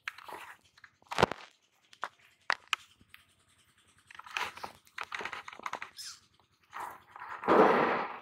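Scraping and crunching as a freshly caught fish is worked on by hand, in short strokes with a few sharp clicks, the loudest scraping near the end.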